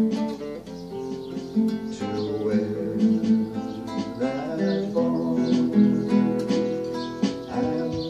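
Acoustic guitar picking a melody with chords, accompanied by finger taps on a Roland electronic hand-percussion pad.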